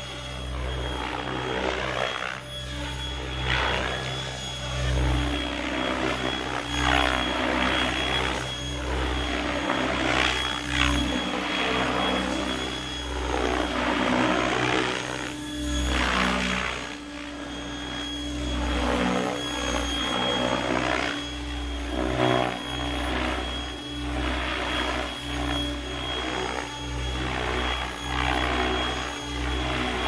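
Mikado Logo 600 electric RC helicopter flying 3D aerobatics at a low headspeed. Its rotor blades whoosh in repeated rising and falling sweeps as it swings past and flips, over a steady high-pitched motor whine.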